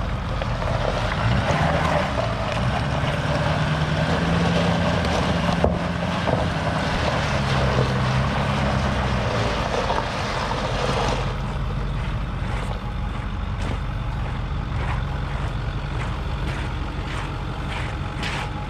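Wind buffeting the microphone over a steady low engine drone; the wind noise eases about eleven seconds in.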